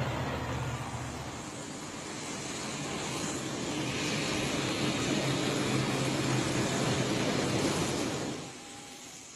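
Steady vehicle noise: a low rumble at first, then a louder rushing hiss that swells from about three seconds in and drops away sharply near the end.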